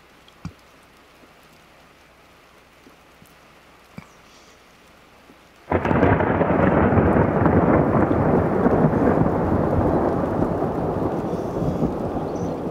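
Thunder during a snowstorm (thundersnow): near quiet with a few faint ticks, then about six seconds in a thunderclap breaks in suddenly and rumbles on loudly, slowly fading.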